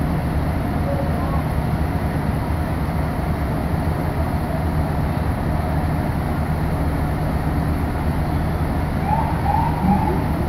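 Fire engine's diesel engine running steadily while it drives the pump, supplying water from a hydrant; a steady drone with an even low hum.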